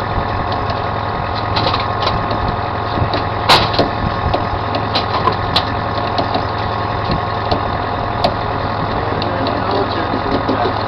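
Commercial salmon troller's engine running steadily, with scattered clicks and knocks over it; the loudest knock comes about three and a half seconds in.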